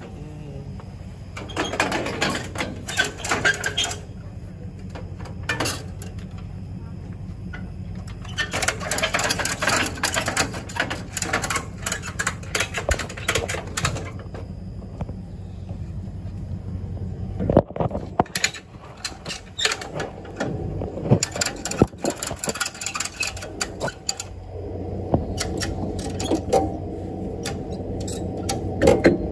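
Bursts of rapid mechanical clicking and rattling from trailer winch and tie-down gear as a car is secured on a car-hauling trailer. Underneath runs the steady low hum of an idling vehicle engine, which grows fuller in the last few seconds.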